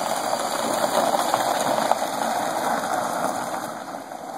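Nissan Altima's tyres crunching over a gravel driveway as the car pulls away, a steady crackle that grows quieter near the end as the car moves off.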